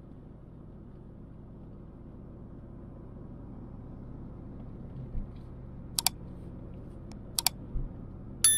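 Subscribe-button animation sound effects: a mouse click about six seconds in, a quick double click about a second and a half later, then a bell chime ringing out right at the end. Beneath them runs the steady low road noise of a car driving, with a couple of low thumps.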